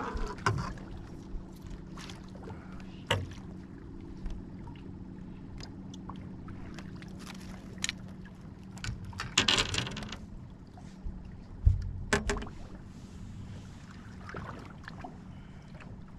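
Steady low hum of a trolling motor holding the boat in place, under scattered knocks and clatter as a crappie is scooped up in a long-handled landing net and handled on the boat deck. A louder noisy burst comes a little past the middle, followed by a sharp thump.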